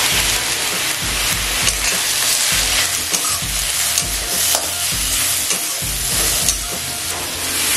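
Onion and tomato masala with salt and turmeric sizzling in hot oil in a pan, with a spatula stirring and scraping it in irregular strokes as the tomatoes cook down.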